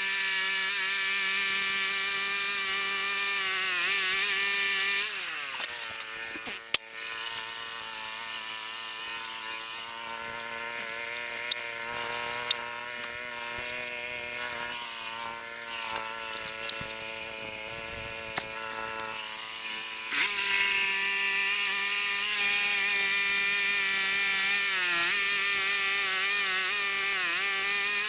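Small gas engine of a portable band sawmill running at high speed, throttled down to idle about five seconds in and revved back up about twenty seconds in. A few sharp clicks and knocks come during the idle stretch.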